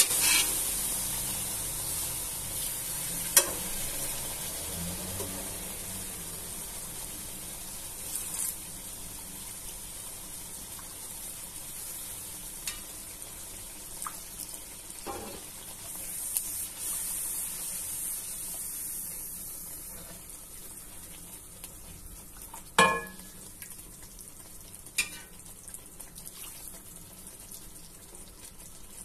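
Butter-and-garlic sauce sizzling and bubbling in an aluminium pan after chicken stock has been poured in, the hiss slowly dying down as it settles. A silicone spatula stirring it gives a few sharp knocks and scrapes against the pan.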